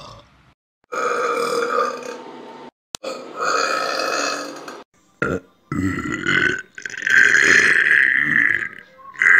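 A string of loud, drawn-out human belches, about five in a row, with abrupt breaks between them; the last and longest lasts about two seconds.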